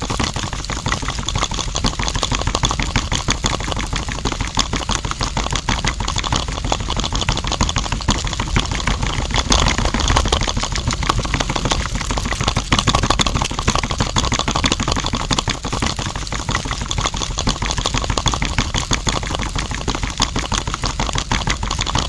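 Small electric motor turning a miniature concrete-mixer drum, running steadily with a dense, rapid rattle.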